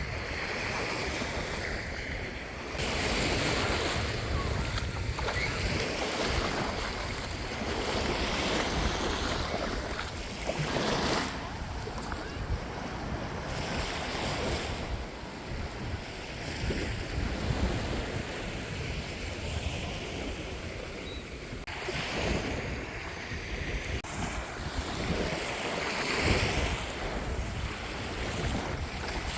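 Sea surf washing onto the beach in repeated swells every few seconds, with wind buffeting the microphone.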